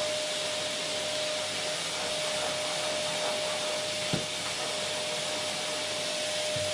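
Vacuum cleaner running steadily, a constant rushing hiss with a steady whine, and a brief low thump about four seconds in.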